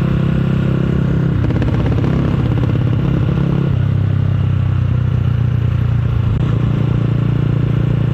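Motorcycle engine running through a loud aftermarket exhaust while being ridden. The steady note changes a few times and turns rougher and pulsing between about one and four seconds in.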